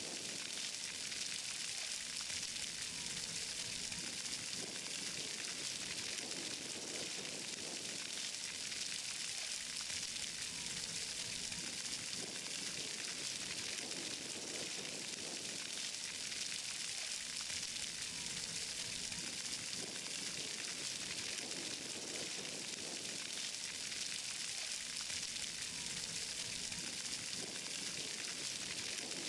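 Ground-level fountain jets splashing onto wet paving: a steady hiss of falling water, its lower splashing swelling and easing every several seconds.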